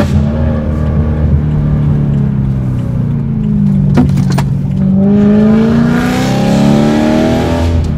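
BMW E92 M3's 4.0-litre V8, heard from inside the cabin through a full IPE valved exhaust with the valves open. There is a quick rev blip at the start and the note eases down. From about halfway the engine pulls hard with its pitch climbing for about three seconds, then lifts off just before the end.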